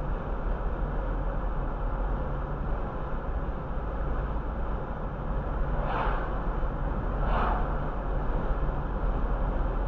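Steady road and engine noise inside a car cruising at about 32 mph, mostly a low rumble. Two short breathy sounds stand out about six seconds in and again a second and a half later.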